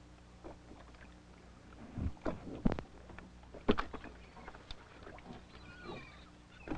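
Scattered knocks and clicks of a gill net, floats and fish being hauled over the side of a wooden boat, with the loudest knocks two to four seconds in, over a steady low hum.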